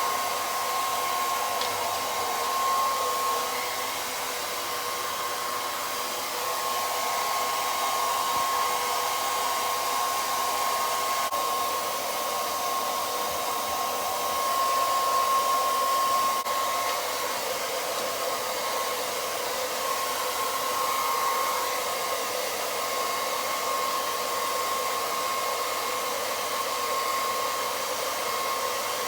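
Hair dryer blowing steadily while drying a large dog's coat: a constant whooshing hiss with a steady whine in it. The loudness swells and dips a little as the airflow moves over the fur.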